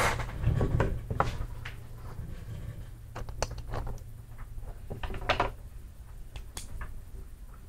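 Classroom room sound while students write: scattered light knocks, rustles and pencil strokes on paper over a steady low hum, busiest in the first second and again around three and five seconds in.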